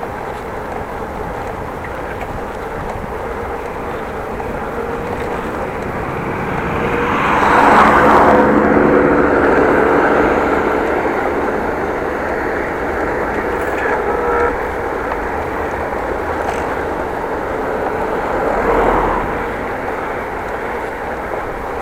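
Steady wind and road rush on the microphone of a moving bicycle, with a motor vehicle passing about a third of the way in, its engine hum rising and fading over a few seconds, and a smaller swell of traffic noise near the end.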